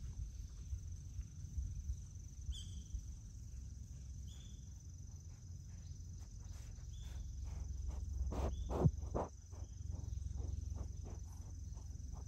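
Outdoor ambience: a steady low wind rumble and a steady high-pitched whine, with a few short high chirps and scattered faint clicks. Two or three louder knocks come about two-thirds of the way through.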